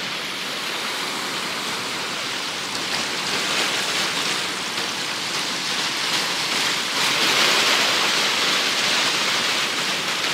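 Small sea waves breaking and washing over a shallow beach: a steady rushing hiss that swells twice, in the middle and late in the stretch.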